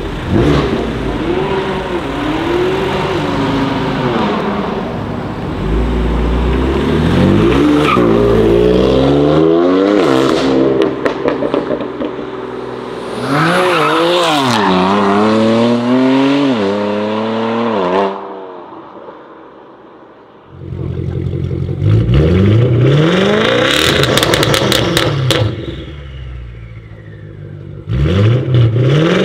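BMW M cars accelerating hard and revving, the engine pitch climbing and dropping again and again. First a blue M4's twin-turbo straight-six pulling away, then a black M2's straight-six passing, then a matte grey widebody BMW 6 Series Gran Coupe revved in place near the end. The sound drops briefly about two-thirds of the way through.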